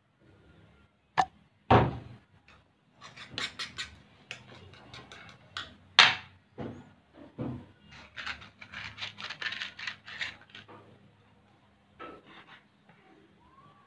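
Clinks, knocks and scraping of a metal spoon in a ceramic bowl and of plastic containers being handled and set down while glue and paint are mixed for slime. Two sharp knocks come about a second in, another loud one around six seconds, and a dense run of quick clicks around eight to ten seconds.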